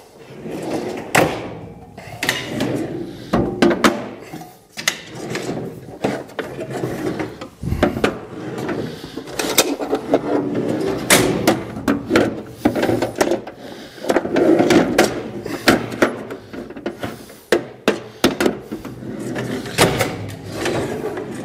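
Metal drawers of a Hazet workshop tool trolley being slid open and pushed shut while tool cases are set down in them: a run of clicks, clunks and rattles of metal on metal.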